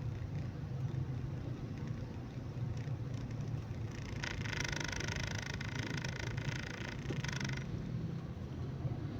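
Car engine and road rumble heard from inside a moving car's cabin. A high-pitched sound joins it for about three seconds near the middle.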